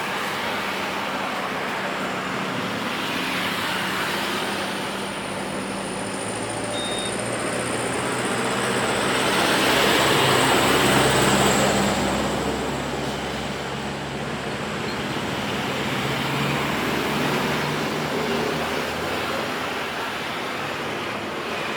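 Jet airliner passing by, its engine noise swelling slowly to a peak about ten seconds in and then easing off, with a thin high whine that falls slightly in pitch.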